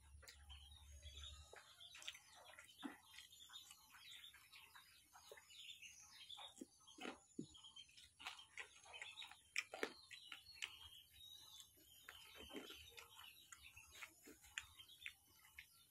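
Faint sounds of eating by hand: fingers squishing and mixing rice on a banana leaf, with small wet clicks from the mouth. Birds chirp faintly in the background.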